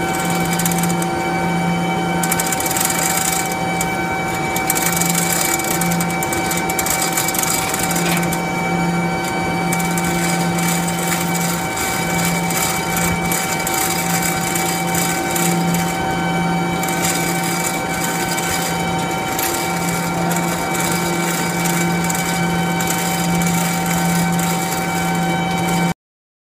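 Manual chain hoist being hauled by its hand chain, the chain rattling and clattering through the block, over a steady machine hum with a low hum that keeps breaking off and coming back. The sound cuts off abruptly near the end.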